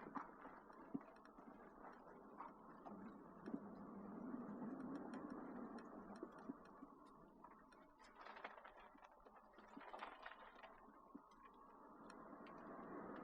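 Faint road noise of a car driving, with many small, irregular ticks scattered through it.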